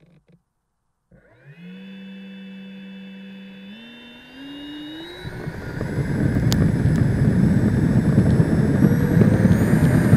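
Model L-39 Albatros jet's ducted fan spooling up from silence about a second in, with a whine that rises and steps up in pitch. From about five seconds in, throttled up to a loud rush of air.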